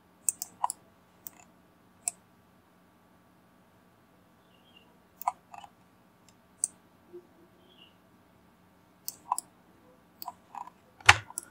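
Scattered, irregular clicks of a computer mouse and keyboard, about a dozen sharp ticks over a faint steady hum.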